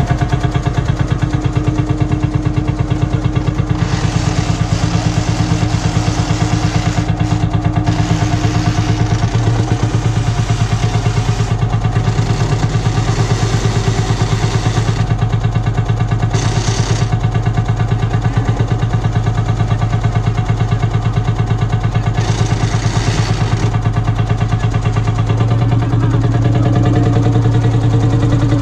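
Lanz Bulldog tractor's single-cylinder two-stroke hot-bulb engine running with a steady, rapid beat as the tractor is driven slowly. It grows a little louder near the end.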